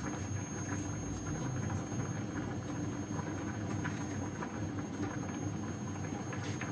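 A steady low kitchen hum and rumble, with light scattered clicks and taps as a capsicum is cut and deseeded by hand.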